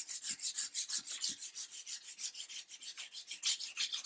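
Sandpaper (320 grit) rubbed by hand over a wooden Mossberg .22 rifle stock in rapid, even back-and-forth strokes, a dry scratchy rasp. The paper is taking the last of an old wax finish out of the grain.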